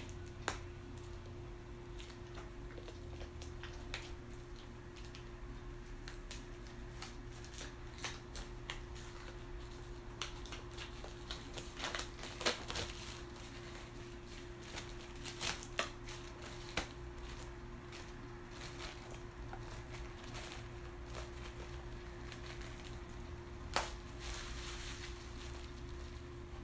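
Handling noise: scattered clicks and crinkling rustles, busiest around the middle and with one sharp click near the end, over a steady low hum.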